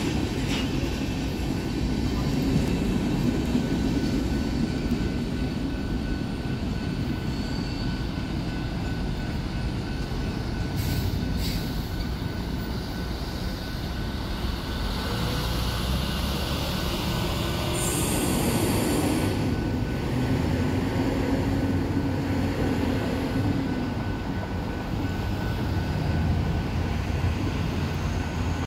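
Freight train tank cars rolling past on the rails: a steady rumble of wheels on track, with brief high squeals about 11 and 18 seconds in.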